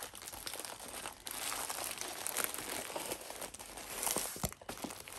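A diamond painting canvas with its plastic cover sheet crinkling as it is rolled up by hand. The crinkling goes on with brief pauses about a second in and between four and five seconds in.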